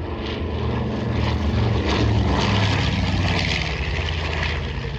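B-25 Mitchell bomber's twin radial piston engines droning in a flyby, growing louder toward the middle and then easing off.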